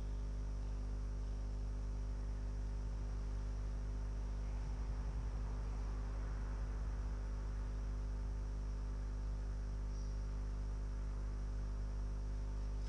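Steady electrical mains hum with its stack of overtones, carried through the audio feed.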